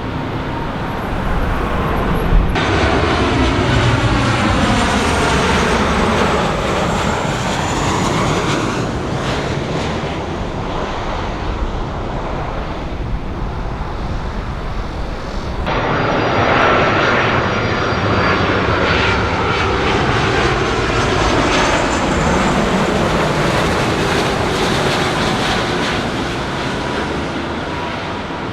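Jet airliners passing low, engine noise steady and loud with a sweeping, shifting pitch as each plane goes by; the sound changes abruptly about two and a half seconds in and again about fifteen seconds in, where one pass cuts to the next.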